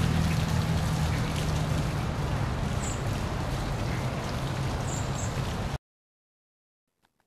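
Dense crackling hiss, like heavy static or rain, over a steady low hum; it cuts off abruptly about six seconds in.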